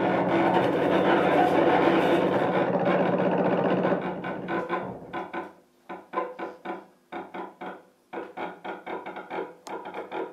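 Free improvisation for bowed cello and no-input mixing board. A dense sustained drone with many overtones runs for about four seconds, then breaks into rapid, choppy stuttering pulses with short silent gaps between them.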